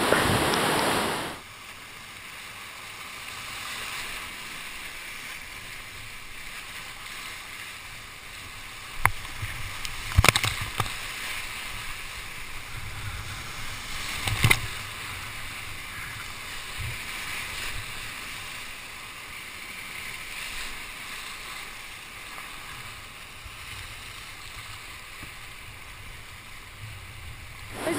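Whitewater rapids rushing as a steady hiss, loud for the first second or so, then softer for the rest. A few sharp knocks stand out about a third and half of the way through.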